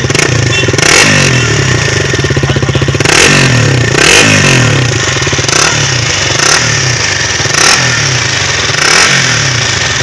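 KTM Duke 200's single-cylinder four-stroke engine idling and being blipped with the throttle several times, each rev rising and falling back to idle, heard from beside the exhaust. The bike has about 52,000 km on an engine that has never been opened.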